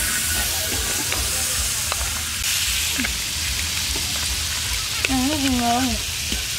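Butter sizzling steadily as it melts in a very hot wok, with a short voice-like call about five seconds in.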